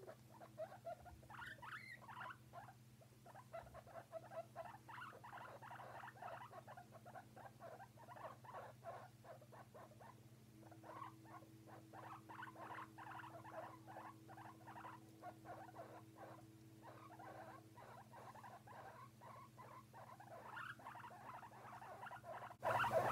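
Guinea pigs making soft, quick squeaking chirrups in rapid runs, over a faint steady hum. A much louder sound breaks in just before the end.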